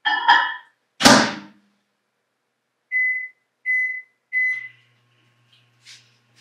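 Microwave oven being shut and started: a short clatter and a loud door thunk, three keypad beeps at the same pitch, then a low steady hum as the oven starts running, heating Nutella.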